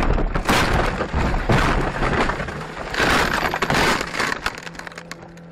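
Car crash heard from inside the vehicle: a rapid run of heavy bangs, crunching and breaking glass that dies away after about four and a half seconds.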